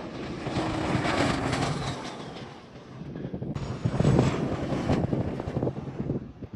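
Jet airliner engine noise, a dense steady rush with wind buffeting the microphone. About halfway through, the sound shifts abruptly to a duller stretch.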